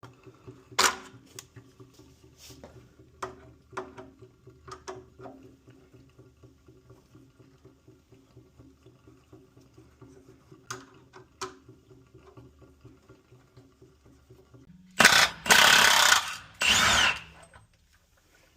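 Hand tools working on a water heater: a long run of quiet ratchet-like clicking with a few sharp knocks, then three loud bursts of a power tool near the end, likely working the anode rod loose.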